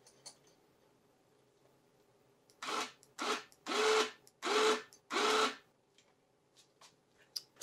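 Harbor Freight Badland 2500 lb electric winch motor run in five short jogs of about half a second each, pitch rising slightly as each one starts, spooling the wire cable onto the drum with no load on it.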